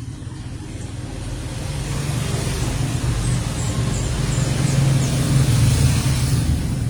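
A motor vehicle passing close by, its engine rumble building to a peak about five seconds in, then easing off.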